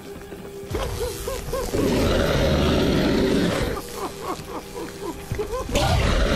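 Science-fiction sound effect of a Slitheen alien unzipping out of its human skin suit: electric crackling and fizzing full of short rising chirps, with creature grunts, swelling loudly about two seconds in and again near the end.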